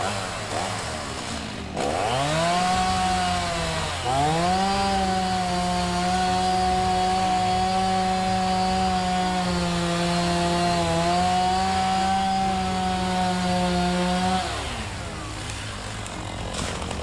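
Chainsaw engine revved up to full throttle about two seconds in, easing briefly near four seconds, then held at high revs with a slight sag in pitch near eleven seconds, before dropping off about fourteen seconds in.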